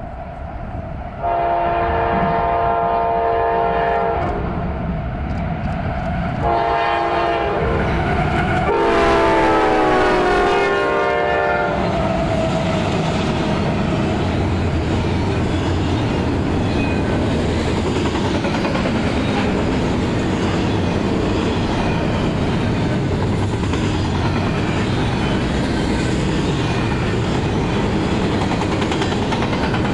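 Locomotive air horn sounding three blasts on a CSX double-stack container train led by five GE diesel locomotives: long, shorter, then long, the last one dropping in pitch as the lead locomotive passes. Then comes the steady rumble of the locomotives and the double-stack container cars rolling by with a clickety-clack of wheels on rail joints.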